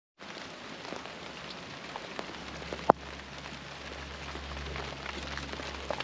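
Steady rain falling on a surface, with many small scattered drop ticks and one sharp louder tap just before the halfway mark. A low rumble sets in partway through.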